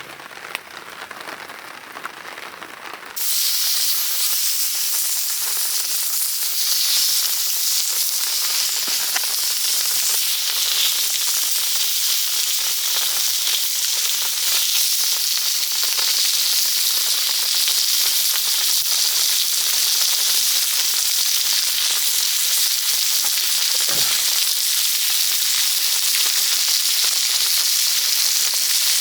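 A steady, dense hiss that comes in abruptly about three seconds in and holds steady. One brief low thud sounds near the end.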